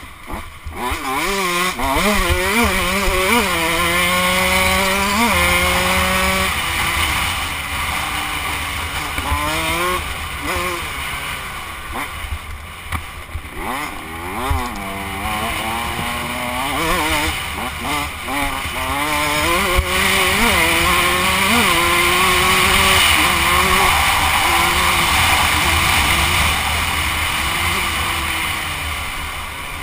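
KTM 105 two-stroke dirt bike engine revving hard and shifting through the gears, its pitch climbing and dropping again and again as the throttle opens and closes. A steady rush of wind noise runs under it.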